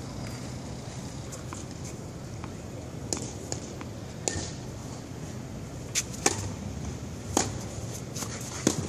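Tennis rally: rackets hitting the ball, with ball bounces, heard as a handful of sharp pops at uneven gaps of about one to one and a half seconds, several of them in the second half.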